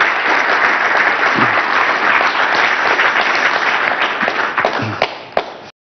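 Audience applauding steadily, the clapping easing a little near the end before it cuts off suddenly.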